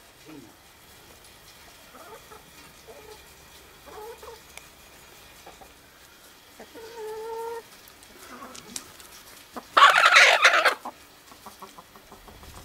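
Backyard chickens clucking softly in scattered short calls, with one drawn-out call about seven seconds in and a loud, harsh burst about a second long a little later.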